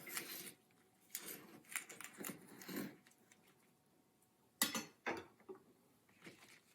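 Faint, irregular rustling and handling sounds in several short bursts as rainbow chard leaves are worked by hand and the stems separated from the leaves.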